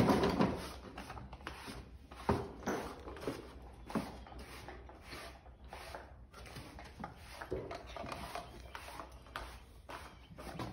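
A grooming brush stroked over a horse's coat, an irregular run of scratchy rubbing strokes about once a second.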